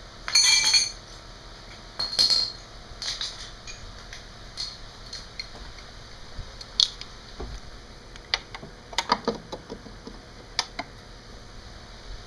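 Metal hand tools clinking and rattling against metal: two short, loud rattles near the start, then scattered clicks and taps.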